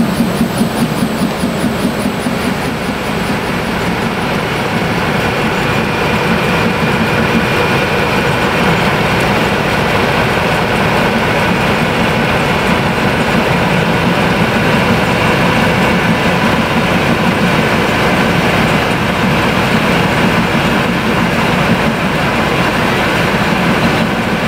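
Diesel locomotive's engine running steadily, with a regular rhythmic clatter in the first second or so that then fades into the steady engine sound.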